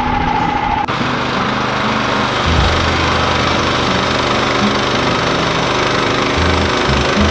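Woodlands HM130 Max portable bandsaw mill running, its small gas engine and blade making a loud steady machine noise, with the low drone shifting a couple of times as the load changes. It starts abruptly about a second in, after a steady high tone with chirping.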